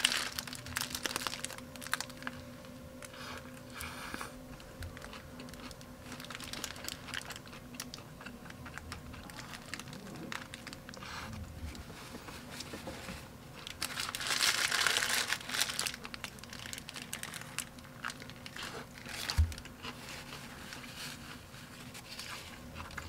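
Paper burger wrapper and paper napkin crinkling and rustling in the hands while a burger is eaten, with scattered small clicks. A louder spell of rustling comes about two-thirds of the way through and a single soft thump a little after it, over a faint steady hum.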